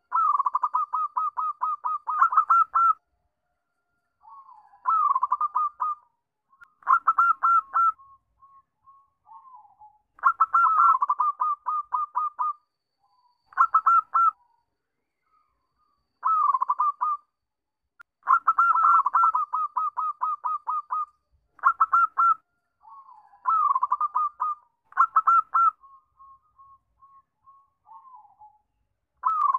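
Zebra dove (perkutut) singing: repeated bouts of quick staccato cooing notes, each bout lasting one to three seconds, separated by short pauses with a few softer notes.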